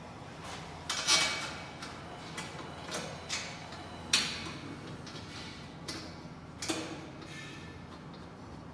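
Steel tubes of a weightlifting bench rack knocking and clanking as they are handled and fitted together: a series of sharp metal knocks, the loudest about a second in and another about four seconds in, over a steady low background hum.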